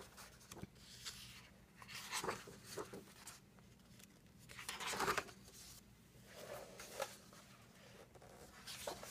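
Heavyweight paper pages of a coloring book being turned, several rustles of paper, the loudest about five seconds in.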